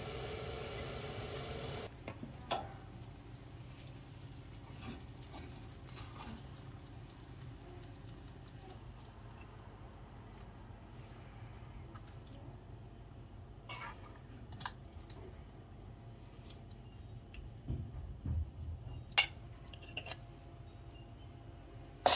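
A utensil clinking and scraping on a ceramic plate and the pan as noodles are served, in scattered sharp clicks over a low steady background, loudest about 19 and 22 seconds in. It opens with a steady hiss that cuts off about two seconds in.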